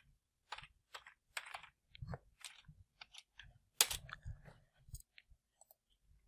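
Faint computer keyboard typing and mouse clicks: irregular short taps, with one louder click about four seconds in.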